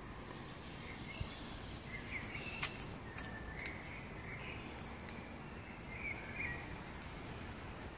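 Birds chirping and singing in short phrases over a steady low outdoor rumble, with a few sharp clicks in between.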